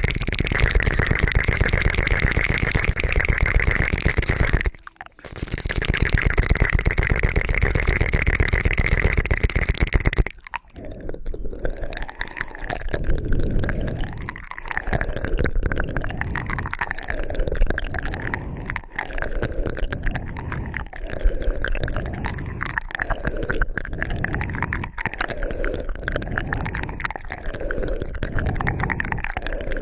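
Close-miked ASMR trigger sounds. For about ten seconds there is a dense scratchy crackle, with one short break near the middle of that stretch. It then changes to a slower, rhythmic swishing, roughly one stroke every second and a half.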